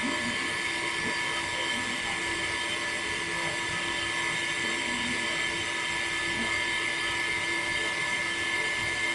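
Mini DC water pump running with a steady high-pitched whine, feeding a thin stream of water through a plastic tube.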